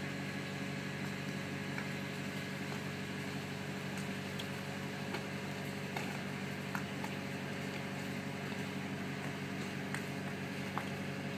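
Steady mechanical hum of the cruise boat's running machinery, unchanging, with a few faint clicks.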